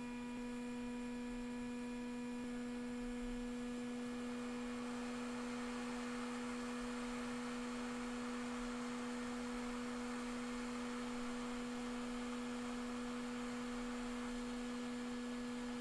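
Hot air rework station blowing steadily: a low constant hum with a fainter higher tone over a soft hiss of air, while it reflows a Tristar charging chip onto an iPhone logic board.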